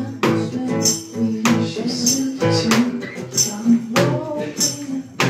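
Acoustic band playing an instrumental passage: strummed acoustic guitar chords with a tambourine struck in a regular beat.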